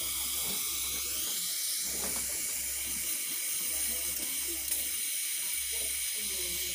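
Steady hiss of an LPG–oxygen torch flame playing on copper pieces as it melts them.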